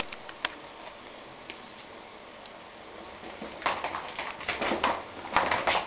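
A cat's paws and claws pattering and clicking rapidly on a hard floor as it runs after a laser dot, starting about three and a half seconds in after a few scattered ticks.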